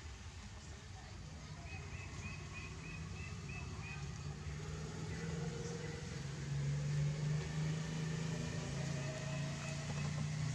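Low, steady engine hum that grows louder from about halfway through, with a quick run of about eight short high chirps around two seconds in.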